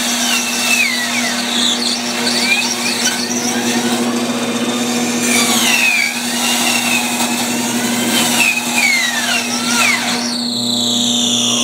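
Bandsaw ripping a thick chestnut board along a curve: a steady motor hum under the rasp of the blade in the cut, with a squeal that wavers up and down in pitch. Near the end the cutting noise drops away, leaving a whine that slowly falls in pitch.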